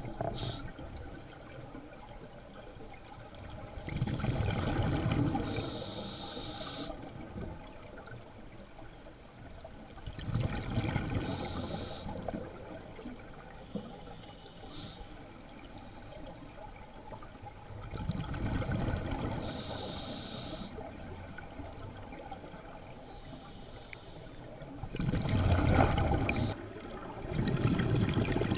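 Scuba regulator breathing heard underwater: about four slow breath cycles, each a rumble of bubbles with a short hiss.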